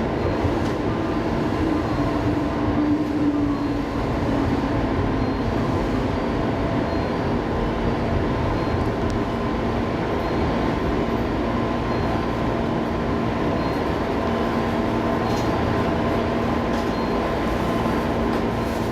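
JR East 205 series electric commuter train running, heard from inside the cab: a steady rumble of wheels on rail with a constant underlying whine.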